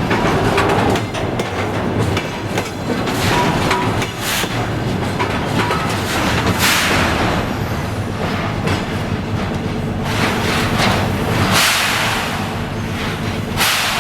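Freight wagons rolling through a hump-yard rail retarder, with a steady low rumble of wheels on rail and several loud hissing surges as the retarder brakes grip the wheels.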